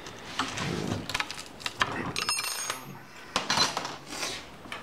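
Small wrench clinking and clicking against the adjustment bolt and jam nut of a sickle-bar blade coupling as the bolt is snugged in a hair. A short ringing clink of metal comes about two seconds in.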